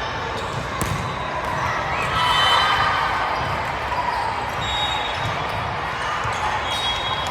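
Gym sound during an indoor volleyball rally: crowd chatter that swells about two seconds in, short high sneaker squeaks on the court, and a few sharp hits of the ball.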